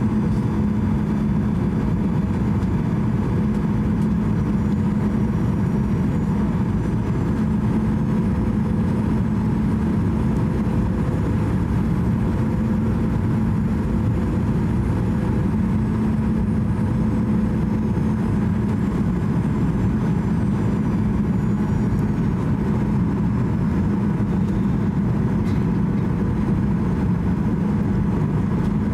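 Steady cabin drone inside a Boeing 737-800 on final approach: its CFM56 turbofan engines and the rushing airflow, with a constant low hum running under it.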